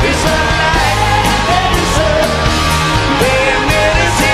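Live rock band playing loudly: electric guitars and drums with a steady cymbal beat, with a voice singing.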